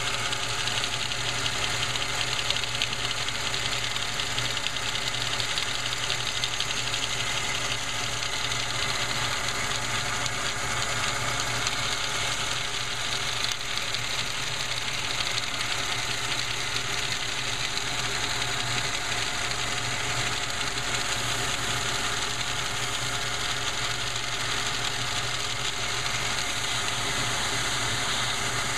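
Shop vac running steadily, its hose driving a Lego inline four-cylinder air engine whose pistons clatter rapidly.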